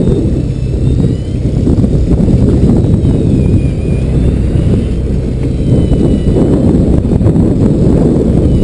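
Steady low rumble of a fishing boat's engine mixed with wind buffeting the microphone, with a faint wavering high whine over it.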